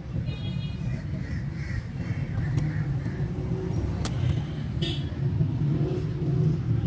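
A steady low rumble of outdoor background noise, with a brief high-pitched call about half a second in and two sharp clicks around four and five seconds in.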